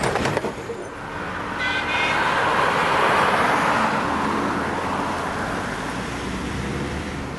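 A vehicle passing by: a steady rushing noise that swells to its loudest about three seconds in, then slowly fades. A short high-pitched tone sounds about two seconds in.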